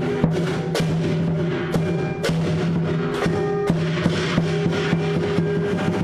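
Lion dance percussion playing: a drum beating steadily, with sharp crashes of clashing cymbals over a sustained ringing tone.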